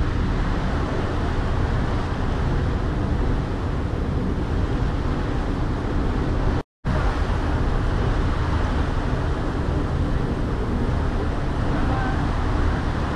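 Steady low rumble of a ferry's engine under the rush of churning wake water at the stern. The sound cuts out for a split second about halfway through.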